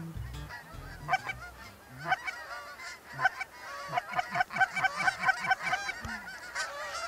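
A flock of Canada geese honking, with many short overlapping honks that come thicker about four seconds in.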